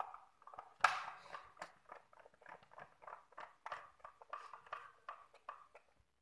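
A metal hand tool working at a screw in a chainsaw's housing: a string of irregular small clicks and scrapes, the loudest about a second in.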